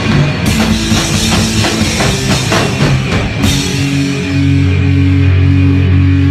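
Loud heavy rock band playing live: fast drumming on a drum kit with cymbal crashes over guitar. From about four seconds in, a low sustained guitar and bass chord rings under the cymbals.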